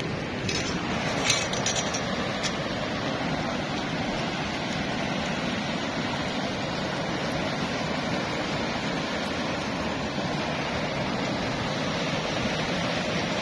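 Steady rushing of flowing water, with a few light clicks in the first couple of seconds.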